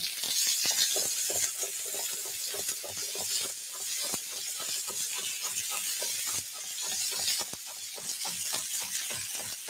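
Chef's knife chopping fresh mint on a wooden cutting board: quick, even knocks, about four a second, over a steady hiss.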